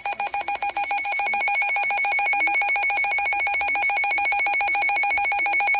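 NOAA Weather Radio alert header: a rapid, buzzy warble of electronic data tones, steady and unbroken, the coded signal that opens a Special Marine Warning broadcast.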